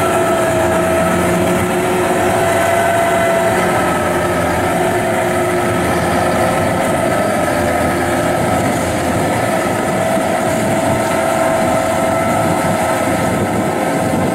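Kubota DC-93 combine harvester's diesel engine running steadily as the crawler works through sticky mud, with a steady whine from its drive and threshing gear over the engine.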